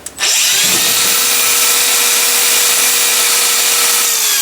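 Hand-held power grinder switched on: its motor spins up with a rising whine, runs at a steady high pitch, then is switched off about four seconds in and winds down with a falling whine.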